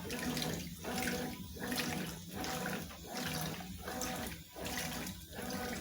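Consul washing machine agitating a load of jeans in water: motor hum and sloshing water that dip briefly about every three-quarters of a second as the wash action reverses.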